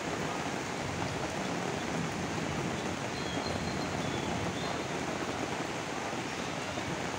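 Steady rain falling on leafy trees and a street: a continuous, even hiss.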